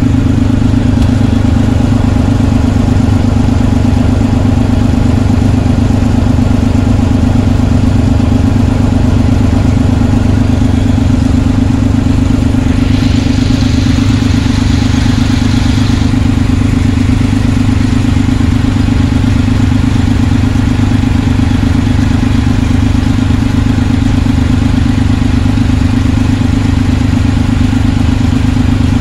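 Vintage tractor engine running steadily at close range, heard from on board the tractor: a loud, even low drone.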